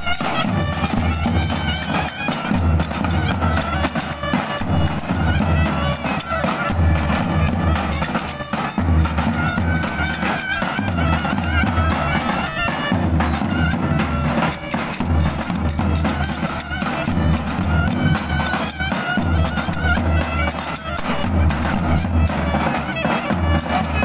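Turkish Roma street music: clarinets playing a loud, reedy melody over davul bass drums beating a steady dance rhythm.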